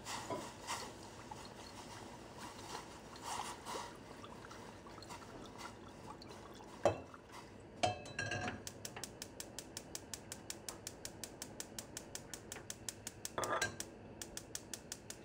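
Balsamic vinegar poured from a glass bottle into a stainless steel saucepan, with two sharp clinks of glass against the metal pot around the middle. Then a gas burner's spark igniter clicking rapidly and evenly, about six clicks a second, as the burner is lit under the pot.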